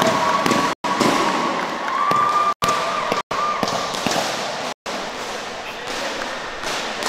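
Spectators' crowd noise at a sepak takraw match, a dense wash of voices. A held, wavering tone rides over it and fades about four seconds in. The sound cuts out completely for a split second several times.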